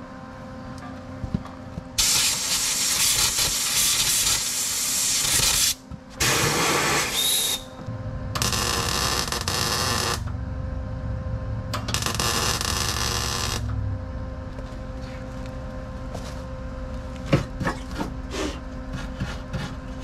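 Arc welding in four bursts of a few seconds each, a crackling hiss as weld is laid in to patch a broken hole in the truck's inner fender area, over a steady low hum.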